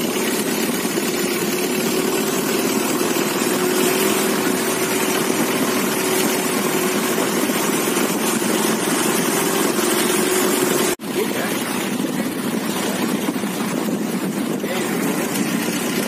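Motorboat engine running steadily, a constant drone over a rushing noise. About eleven seconds in, the sound drops out for an instant and comes back as the rushing noise without the steady engine tone.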